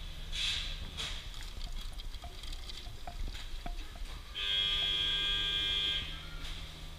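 Coffee vending machine dispensing coffee into a plastic cup. A little over halfway through, its pump gives a loud, steady whine with a low hum for about a second and a half, then eases off.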